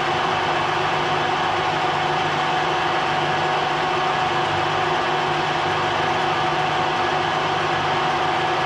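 Ajax milling machine running steadily: an even machine hum with a constant mid-pitched whine.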